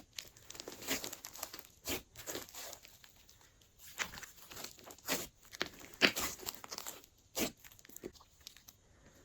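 Glossy slime being worked by hand, squished and stretched, giving irregular sticky crackles and pops with a louder burst every second or so.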